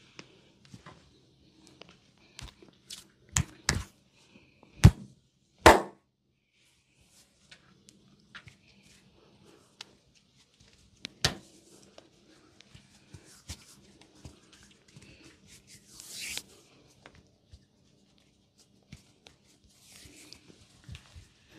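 Hands slapping and pressing bare skin during a shoulder and back massage. There is a run of sharp smacks about 3 to 6 seconds in, the loudest two near 5 and 6 seconds, and another near 11 seconds, with quieter tapping and rubbing between them.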